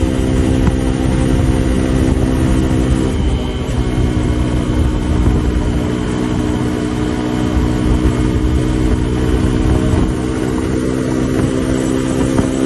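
Suzuki DR150's single-cylinder four-stroke engine running steadily at high revs under load at top speed, with wind and road noise underneath. About three seconds in, the engine note briefly wavers before settling back to a steady pitch.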